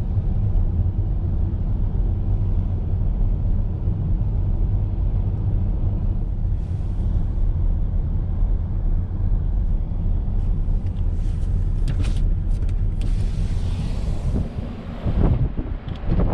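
Car driving, heard from inside the car: a steady low rumble of engine and road noise. Near the end the rumble dips and becomes uneven.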